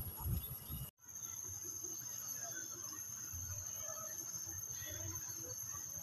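Outdoor ambience: low gusts of wind on the microphone, cut off abruptly about a second in. Then a steady, high-pitched insect drone with faint distant voices.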